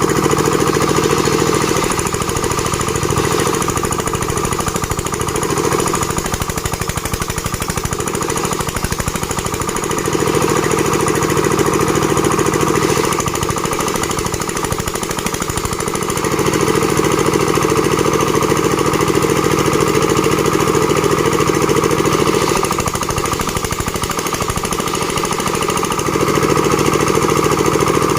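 Plank-making machine running with a loud, fast pulsing beat. Its sound dips for a second or two several times and then picks up again.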